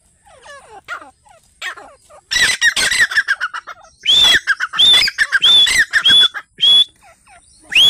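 Grey francolin calling. A quick run of short chattering notes comes about two seconds in. Then follows a loud series of about six calls, each sweeping up and holding its top note, roughly one every half-second to second.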